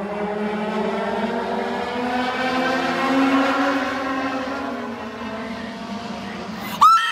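A pack of Legends race cars' motorcycle engines running at speed around the oval, the engine note swelling and rising as they come by and then falling away. Near the end there is a sudden, loud, short squeal that slides in pitch.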